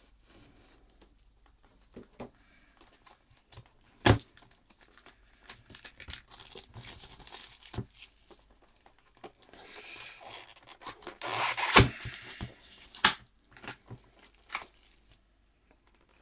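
Cardboard product box being cut and torn open and handled, with tearing and crinkling of the packaging and several sharp knocks, the loudest about 4 and 12 seconds in.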